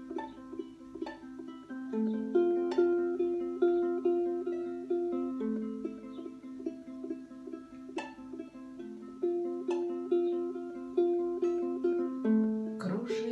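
Ukulele playing an instrumental intro, plucked notes in a steady rhythm. A singing voice comes in right at the end.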